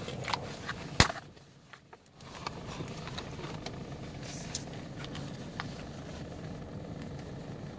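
Steady low hum of a car cabin with the engine running, broken by one sharp click about a second in, after which the hum drops out for about a second. A few faint light clicks follow, from plastic pudding cups being handled.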